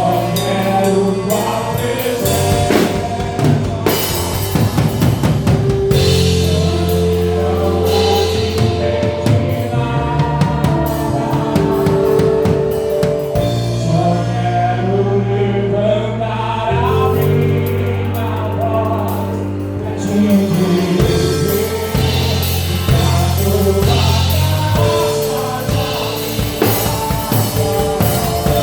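Live gospel band playing: electric bass holding long low notes under a drum kit, with voices singing together over them.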